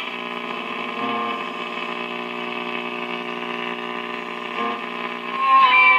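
A 1946 Philco tube radio plays through a test speaker while its dial is being tuned: a steady buzzing drone made of several held tones. It shifts briefly about a second in and again near the end as the tuning moves.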